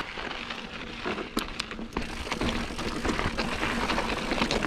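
Mountain bike tyres rolling and crunching over a rocky, gravelly desert trail, with scattered sharp clicks and ticks of stones and bike parts, two sharp ones about a second and a half in.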